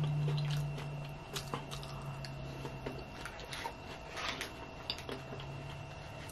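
Close-up wet chewing of cheese-dip nachos topped with sour cream, soft squishing and crunching, with a few light clicks of a plastic fork on a paper plate. A low steady hum runs through the first half and comes back near the end.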